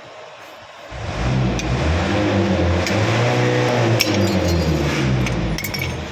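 A motor vehicle engine runs for about five seconds from about a second in, its pitch rising and falling, with a few light metallic clinks.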